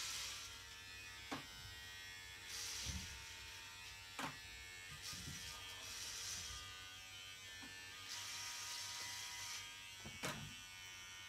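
Corded electric hair clippers buzzing steadily while cutting hair, with a hiss that swells and fades every couple of seconds as they work over the head, and a few small clicks.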